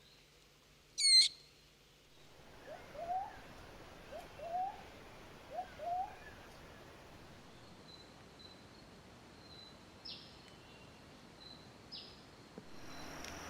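Birds-of-paradise calling: one loud, sharp call about a second in, then three pairs of short rising calls, and near the end faint high thin notes with two quick downward-sweeping notes.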